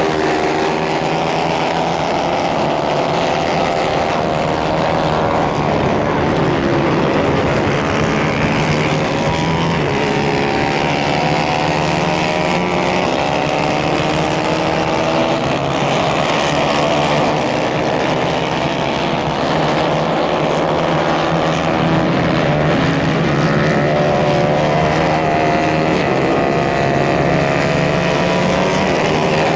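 Several 150 cc racing kart engines running hard together, their pitches rising and falling as the karts accelerate, lift off and pass.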